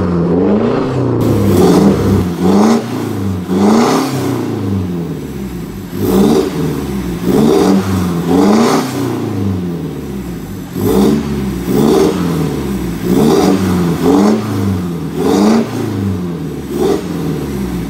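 Mitsubishi Strada pickup's turbodiesel engine revved through a full turboback aftermarket exhaust with dual tips, in about a dozen short throttle blips, the pitch rising and falling with each.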